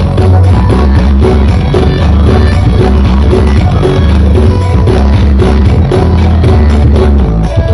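Very loud music played through a sound horeg system with twelve planar subwoofer boxes, dominated by heavy pulsing bass under a steady beat.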